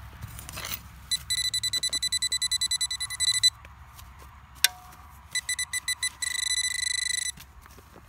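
Deteknix metal-detecting pinpointer beeping rapidly and high-pitched, about eight beeps a second, in two spells. The second spell runs into a steady tone for about a second, signalling metal right at its tip. A sharp click comes between the spells.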